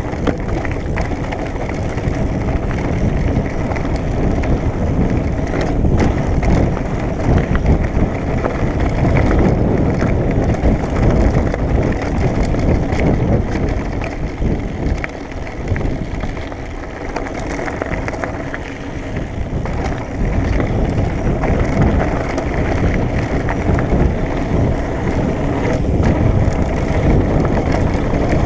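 Mountain bike rolling fast downhill on a rough dirt and gravel track: tyre noise crunching over the loose surface with constant small rattles and knocks from the bike, and wind buffeting the microphone.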